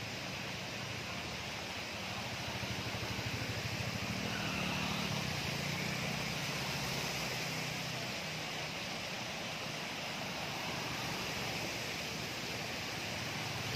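Motorcycles and a scooter riding through floodwater flowing over a road: small engines running and water splashing and hissing off their wheels. The engine note rises and the splashing gets louder as a scooter passes close, about four to six seconds in.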